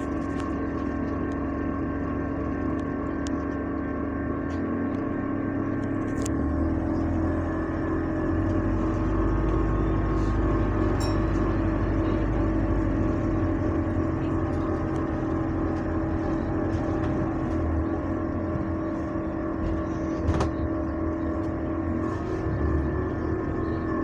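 Loud, steady droning hum inside a moving bus, a constant tone with fainter higher whines above it. The engine rumble underneath grows louder about six seconds in as the bus picks up speed.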